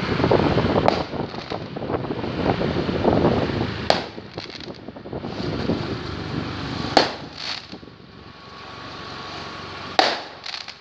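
Fireworks going off: three loud sharp bangs about three seconds apart, with fainter cracks between them, over a rushing noise that fills the first few seconds.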